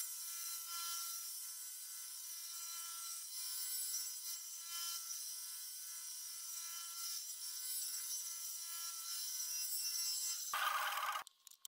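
Bandsaw running and cutting through a poplar lure blank: a steady high whine with a rasp of the blade in the wood. It gets louder and lower near the end, then stops abruptly.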